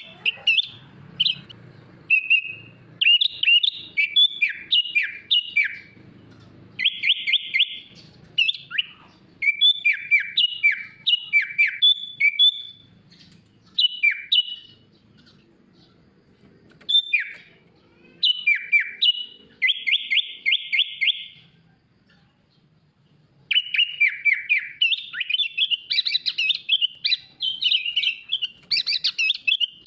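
Sooty-headed bulbul (kutilang) singing a varied song with fill-in phrases: rapid chirps, downward-sweeping whistles and fast rattling trills in bursts, with short pauses between phrases and a longer pause a little past the middle.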